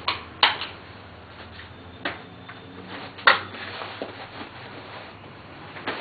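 A handful of sharp clicks and clacks, the loudest about half a second and about three seconds in, over a steady hiss.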